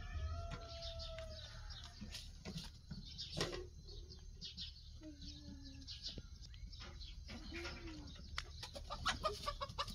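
Chickens clucking on and off, with scattered sharp clicks throughout that grow thicker near the end.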